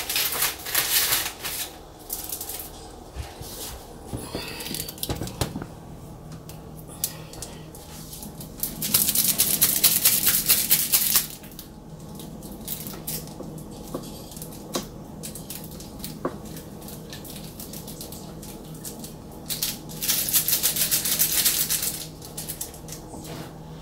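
Bouquet wrapping being crinkled by hand in two crackly bursts of about two seconds each, roughly nine and twenty seconds in, with small knocks of handling on the counter in between. A steady low hum runs underneath.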